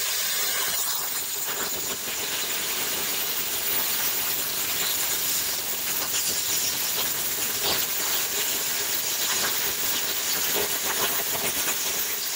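Vevor Cut 50P plasma cutter set to 40 amps, cutting through 3/8-inch steel angle: the air-plasma arc makes a loud, steady hiss with occasional crackles.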